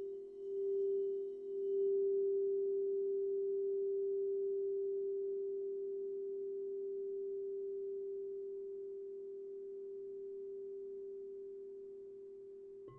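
Clear quartz crystal singing bowl ringing with one strong steady tone and a fainter lower tone beneath it. The volume wobbles for the first second or two, then swells and slowly fades.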